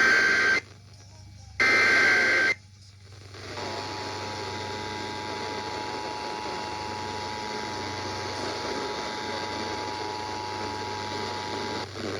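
Emergency Alert System activation over broadcast radio: the last two bursts of the digital SAME header, each about a second long with short gaps between, then the EAS two-tone attention signal held steady for about eight seconds over a constant hiss.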